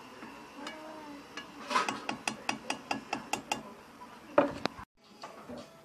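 Metal spoon clicking against the pan while stirring a panful of cooked river shrimp: a quick, even run of about a dozen clicks from about two seconds in, then one louder knock.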